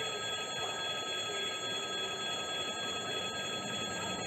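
Railway level crossing's electric warning bell ringing continuously over a steady background haze, while the crossing is closed and a train is due.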